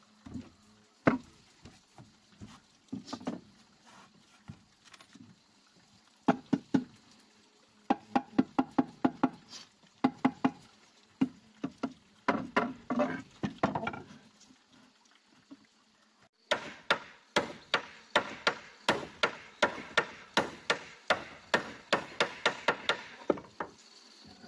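Claw hammer driving nails into wooden planks: short bursts of quick blows, then a longer steady run of about four blows a second in the second half.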